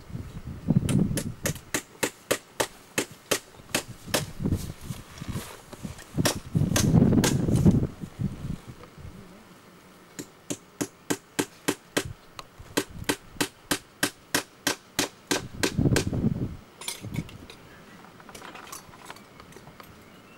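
Hammer blows struck over and over at about three a second, in two long runs with a pause of a couple of seconds between them, then a few scattered strikes near the end. Low gusts of wind buffet the microphone at the start, in the middle and near the end.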